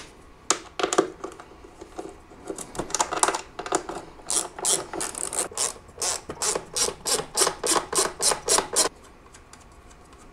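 10 mm ratchet wrench clicking as nuts are backed off: scattered clicks at first, then a steady run of about four clicks a second from about four seconds in, stopping shortly before the end.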